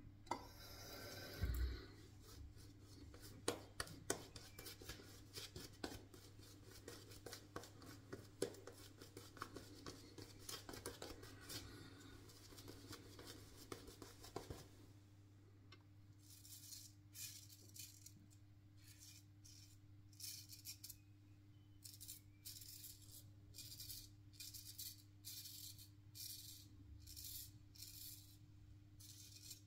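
Synthetic shaving brush working lather over the face, a dense soft crackle of bristles and foam. About halfway in it gives way to a single-edge safety razor, a RazoRock Hawk V2 with a Feather ProGuard blade, scraping stubble against the grain in a series of short, separate rasping strokes.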